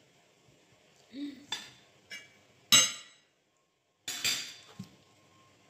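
Cutlery clinking against dishes during a meal: about half a dozen separate sharp clinks, the loudest about halfway through.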